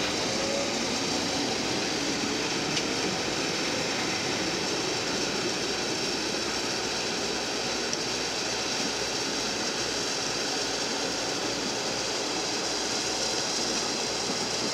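Electric multiple-unit suburban train pulling away from the platform and receding, a steady running noise with a faint rising motor whine near the start.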